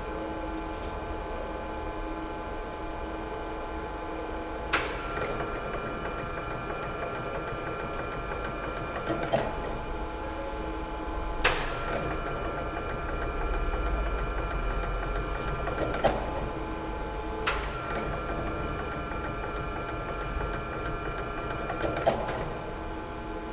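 Gleason No.104 Coniflex cutter grinder running through a repeating cycle. A steady machine hum is broken by a sharp knock every couple of seconds. A higher whine comes on after one knock and cuts off at the next, three times over.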